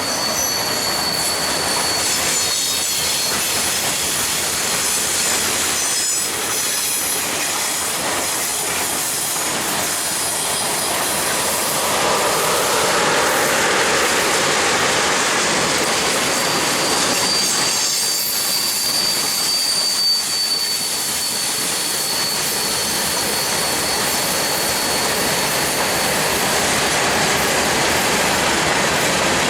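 Long freight train of mixed cars rolling past: a steady rumble and rattle of wheels on rail. A thin, high wheel squeal sounds near the start and again from a little past the middle.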